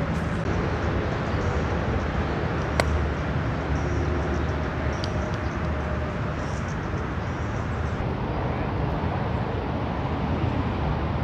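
A gap wedge strikes a golf ball once, a single sharp click about three seconds in, over a steady low outdoor rumble.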